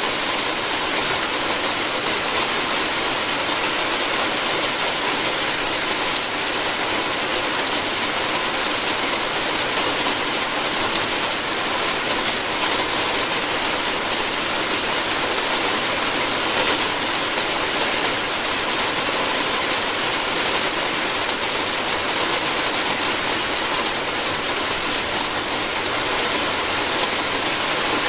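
Steady heavy rain drumming on a roof, a dense even patter of drops.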